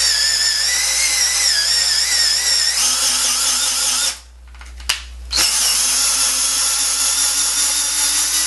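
Power drill turning an STI thread tap into a drilled 1/4-20 hole in a metal part: a steady motor whine with a wavering pitch. It stops about four seconds in, a short click follows, and the drill runs again a second later, backing the tap out of the hole.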